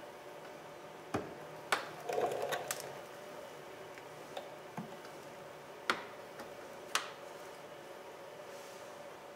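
Scattered sharp clicks and light knocks of plastic door-trim parts being handled and fitted: a few close together around two seconds in, then single clicks near six and seven seconds, over a faint steady hum.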